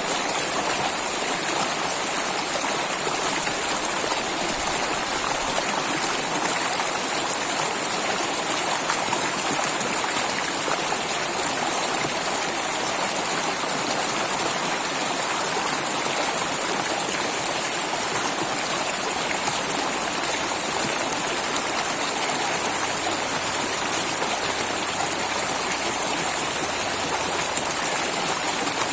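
Flowing water, such as a stream or small waterfall, rushing and splashing in a steady, unbroken hiss.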